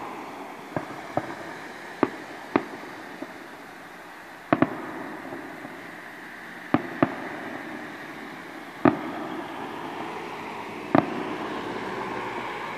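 Aerial fireworks shells bursting: about ten sharp bangs at irregular intervals, some in quick pairs, over a steady noisy background that swells near the end.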